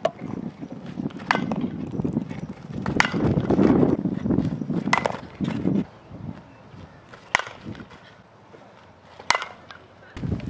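Softball bat striking pitched balls: about five sharp cracks roughly two seconds apart, over a low rushing noise in the first half.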